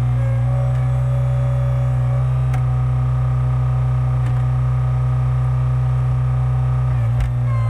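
Skid steer engine and hydraulics running steadily with a strong low hum, powering a Split-Fire 4208 log splitter attachment. The tone dips briefly near the end.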